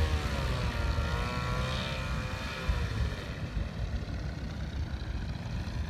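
Paramotor engine and propeller running in flight, a steady drone whose pitch dips, rises and falls again over the first few seconds before settling into a low rumble.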